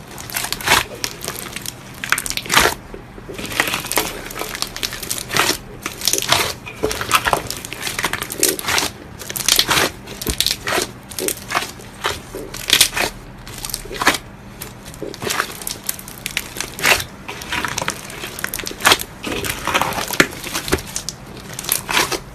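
Slime being squeezed and pressed by hand, giving short, sharp crunching noises in quick irregular succession, several a second.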